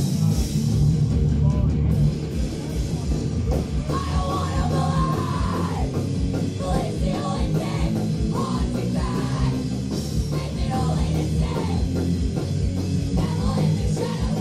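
Loud live heavy rock music played through a PA: fast, heavy drumming under a dense, distorted band sound, with a vocal line over it from about four seconds in.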